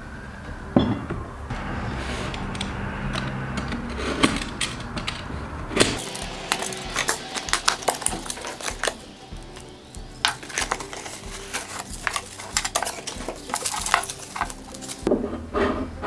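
A ceramic mug knocks down onto a wooden table with a sharp knock, followed by a few clinks of china. Then a cardboard box and bubble wrap crackle and rustle as they are handled and opened.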